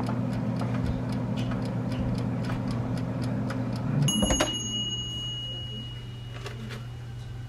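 Countertop oven's mechanical dial timer ticking at about four ticks a second over a steady low hum, then running out about four seconds in with a clunk and a bell ding that rings on and fades, signalling that the heating cycle is done.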